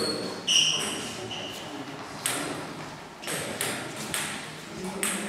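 Celluloid-type table tennis ball bouncing and clicking on the table and paddles: several sharp pings and taps at irregular intervals.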